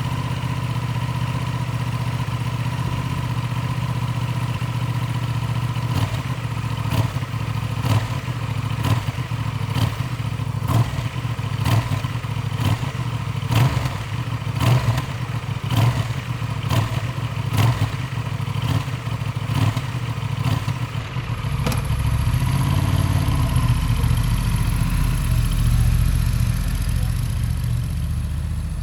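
Honda XL750 Transalp's 755 cc parallel-twin engine idling after a cold start. From about 6 s in, sharp short sounds come roughly once a second for some fourteen seconds, and after about 21 s the engine sound turns louder and deeper with a thin high whine over it.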